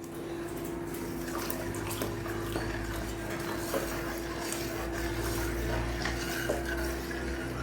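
Jaggery syrup being poured into a pot of thickened payasam while a spoon stirs it, scraping and clinking against the pot, over a steady low hum.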